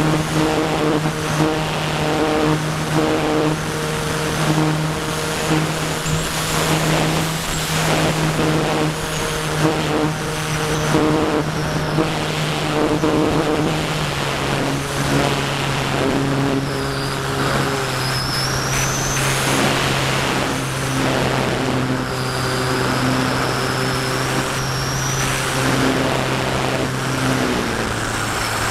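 Electric motor (Firepower 10 brushless outrunner) and spinning propeller of a Parkzone Radian RC glider, with wind rushing over the onboard camera's microphone. The steady drone drops in pitch about halfway through and again near the end as the motor slows.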